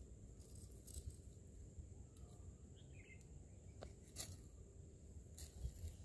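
Near silence: faint outdoor background with a steady high faint hum and a few soft ticks.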